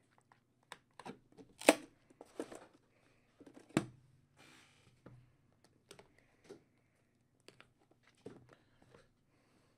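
Sealed trading-card box and pack packaging being torn open and handled: scattered clicks and crinkles of wrapper and cardboard, with a short ripping tear about four and a half seconds in.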